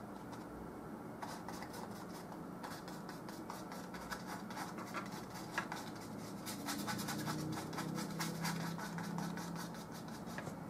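Paintbrush scratching and dabbing oil paint onto canvas in short strokes that come faster and closer together in the second half.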